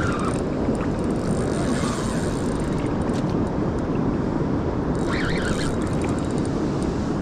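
Steady rushing of river water, with wind noise on the microphone.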